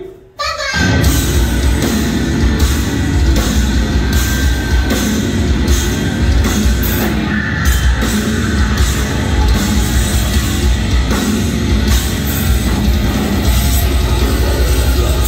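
Live heavy-metal band playing loud: distorted electric guitars, bass and drum kit. The music breaks off for a moment at the very start, then the full band comes crashing back in and drives on steadily.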